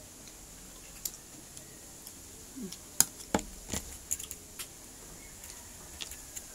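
Crisp slices of unripe green mango being bitten and chewed: a scatter of short, sharp crunchy clicks, bunched together a little past the middle.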